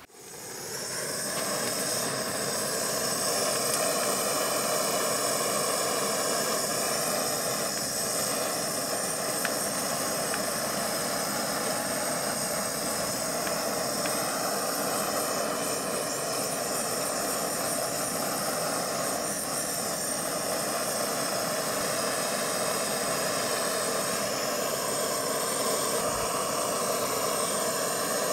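Handheld gas blowtorch burning with a steady hissing rush of flame, swelling up over the first second or two and then holding even.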